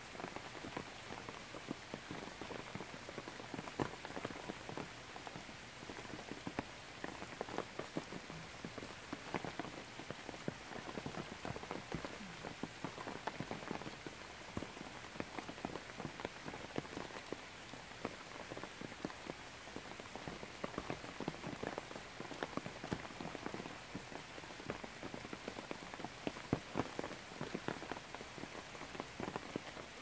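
Heavy rain falling on forest foliage: a steady rushing hiss filled with many separate, close drop hits on leaves.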